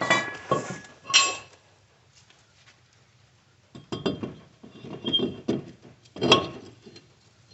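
Metal tools and steel car parts clinking and clanking against each other in several short clusters, some strikes ringing briefly, as parts of a wheel hub and brake assembly are handled.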